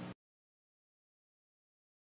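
Silence: the soundtrack's faint steady hum cuts off abruptly right at the start, and nothing follows.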